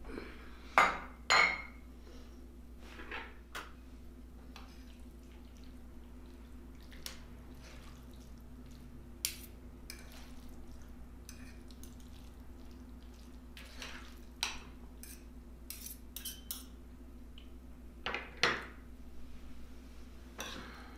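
Eating utensils clinking and scraping against a plate or takeout container while a meal is eaten: scattered sharp clicks and knocks, loudest near the start and again near the end, over a faint steady low hum.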